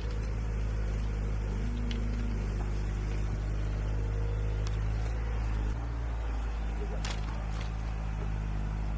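Excavator's diesel engine running steadily with a low drone, its low note shifting slightly a little before six seconds in, with a few faint clicks over it.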